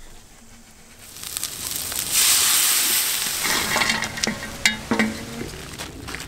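Chopped frogs sizzling in hot oil and chili paste in a wok, the hiss building and peaking about two seconds in, followed by a metal spatula scraping and clinking against the plate and wok.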